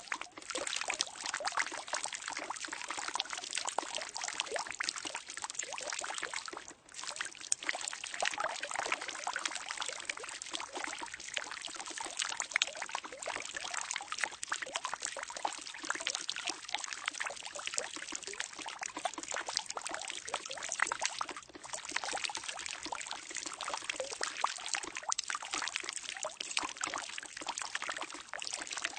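Water pouring steadily into a barrel, a continuous splashing rush that briefly dips twice.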